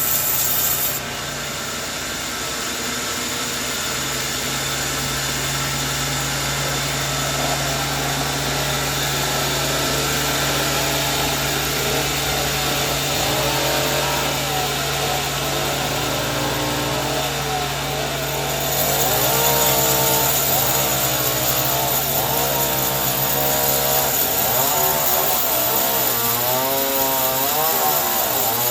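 Sawmill saw running and cutting a coconut log: a steady motor hum under a blade whine whose pitch wavers as it cuts, getting louder about two-thirds of the way in.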